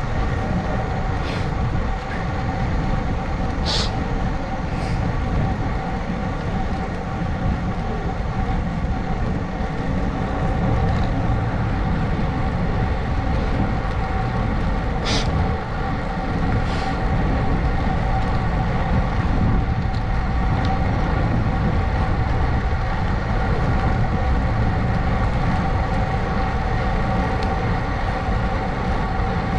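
Steady wind and road noise from riding at speed with a mounted action camera, with a steady faint hum and a few brief high ticks.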